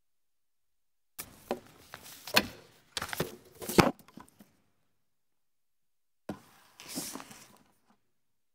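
Irregular sharp knocks and clatter, a busy cluster of about three seconds and then a shorter one near the end, with dead silence before and between.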